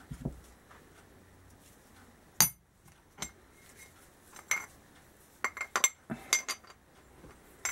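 Metal parts clinking and knocking on a workbench as a wheel bearing and a motorcycle sprocket carrier are handled and set down: scattered sharp clinks, with several in quick succession about two-thirds of the way through.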